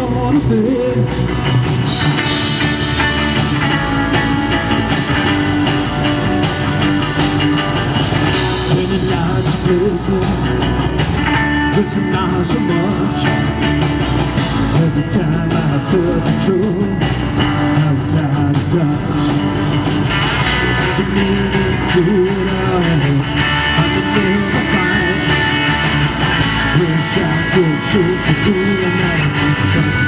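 Live rock band playing: electric lead and rhythm guitars, bass guitar and a drum kit, loud and continuous.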